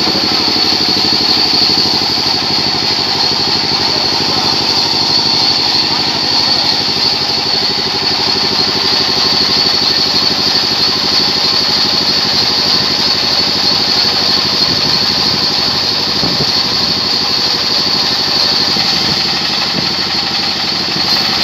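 Engine-driven vertical band sawmill running steadily as a large log is fed through the blade: a steady engine note under a high, constant sawing hiss.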